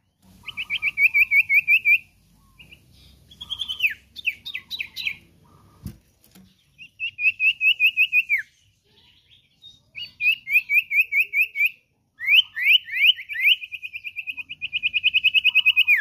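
Common iora singing in bursts: fast trills of clear, whistled notes, about eight a second, several phrases ending in a falling slur. A single sharp knock about six seconds in.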